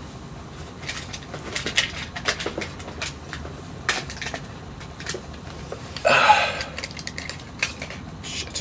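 Rummaging through a jacket for a stack of cards: cloth rustling with scattered small clicks and knocks of handled objects, and a louder rustle about six seconds in.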